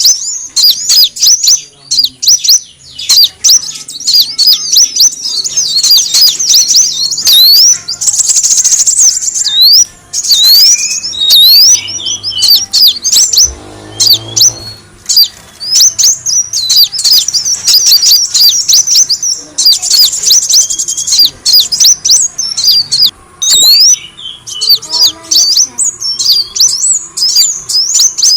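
Kolibri wulung (a sunbird) singing: rapid, high, thin chirps and twitters that follow each other almost without a break, pausing only briefly now and then. It is a recorded lure call, played to draw in other birds of its kind.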